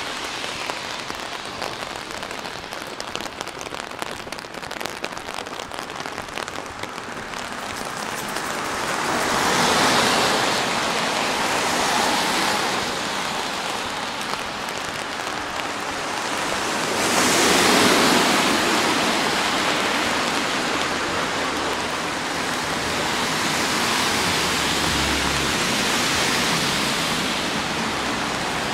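Steady rain falling, with a fine patter of drops for the first several seconds. A broader rushing hiss swells up and fades away twice, about ten seconds in and again about eighteen seconds in.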